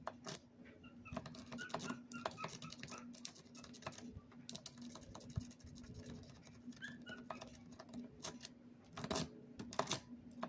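A lock pick raking the pins of a Master Lock 150 padlock, a five-pin lock with four spool pins: a rapid, uneven run of small metallic clicks and scrapes as the pick works the pins toward a false set. A few louder clicks come near the end.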